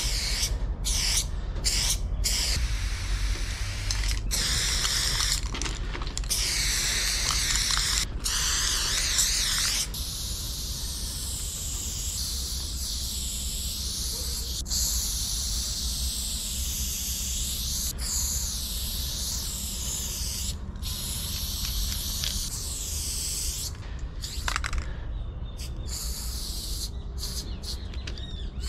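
Aerosol spray-paint cans hissing as paint is sprayed in strokes: several short bursts with brief breaks in the first ten seconds, then long, nearly unbroken spraying, with more breaks near the end. A steady low rumble runs underneath.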